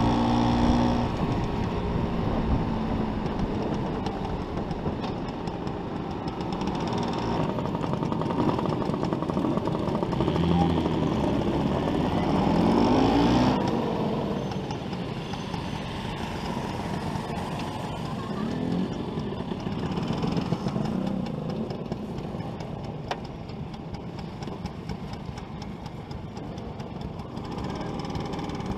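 Vintage Vespa scooter's two-stroke engine running under way. Its note rises and falls about halfway through, then runs quieter as the scooter slows.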